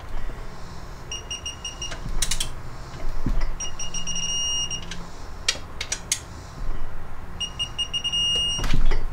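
Digital torque wrench beeping three times, each tone about a second long, as each transmission case bolt reaches the set torque of 28 N·m, with short ratchet clicks between the beeps.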